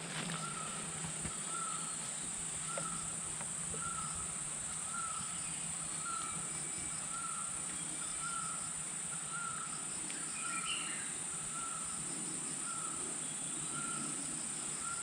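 Outdoor insect chorus: a steady, high-pitched insect drone, with a short chirping call repeating evenly a little under twice a second.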